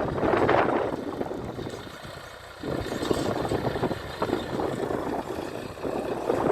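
Tractor engine running, its sound swelling and fading; it drops lowest about two seconds in, then picks up again.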